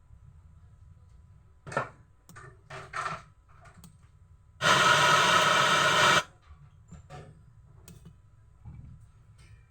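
A few handling clicks and knocks, then a loud burst of hiss lasting about a second and a half that starts and stops suddenly.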